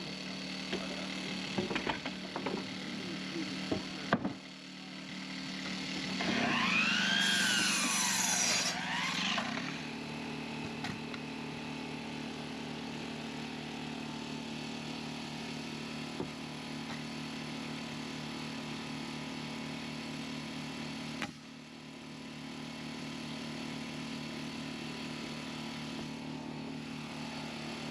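An engine running steadily, its pitch rising and then falling once partway through, with a few sharp knocks in the first few seconds.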